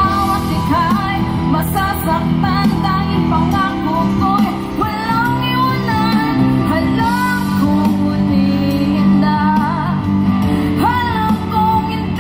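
A woman singing a song with instrumental accompaniment, holding a long note near the end.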